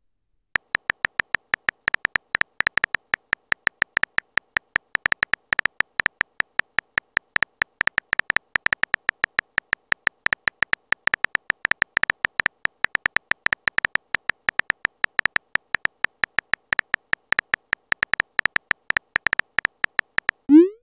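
Simulated phone keyboard typing sound effect: rapid, uneven clicks at several a second, each a short pitched tick, as a text message is typed out letter by letter.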